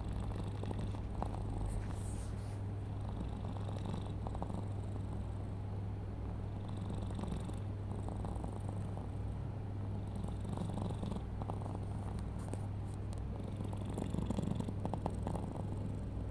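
Sleeping domestic cat making a steady low rumble, which the owner calls snoring.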